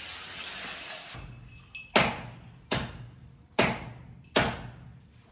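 A steady hiss that cuts off about a second in, then four sharp knocks or blows, roughly one every 0.8 seconds, each ringing briefly.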